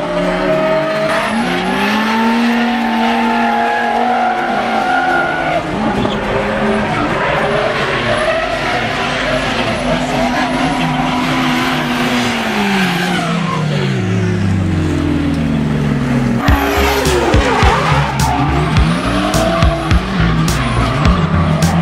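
Two drift cars battling in tandem, one of them a Toyota Cresta GX71 sedan, with engines revving hard and pitch swinging up and down on the throttle while the tyres squeal and skid. Partway through the revs fall away, and in the last few seconds a series of sharp cracks comes through over the engine noise.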